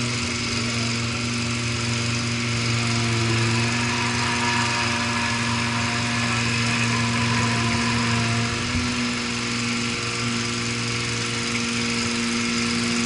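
Engine of a Eurodig Dumpy 800 mini dumper running steadily, its note changing slightly about nine seconds in.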